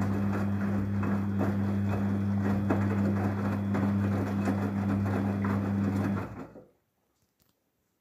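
Daewoo DWD-FT1013 front-loading washing machine turning its drum in the rinse cycle: a steady motor hum with water and wet laundry sloshing in the drum. The sound cuts off suddenly about six and a half seconds in.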